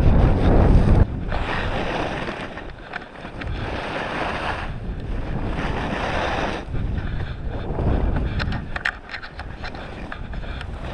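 Wind buffeting a pole-mounted GoPro's microphone together with skis hissing and scraping over snow on a downhill run. A heavy low rumble of wind cuts off about a second in, and the rushing of the skis then swells and fades every second or two, with a few scrapes near the end.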